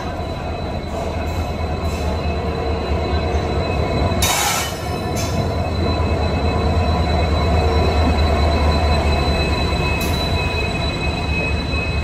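WDP4D diesel locomotive rolling slowly past at close range, its two-stroke EMD diesel engine giving a deep steady rumble that grows louder as it nears, with a thin high squeal of wheels on the rails. A short hiss comes about four seconds in.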